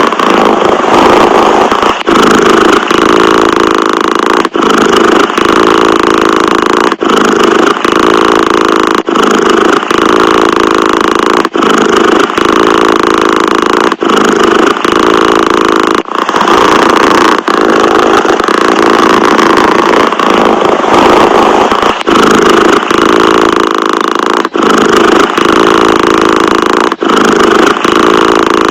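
Domestic cat purring: a loud, steady rumble broken by a brief dip every two seconds or so as the purr turns over between breaths.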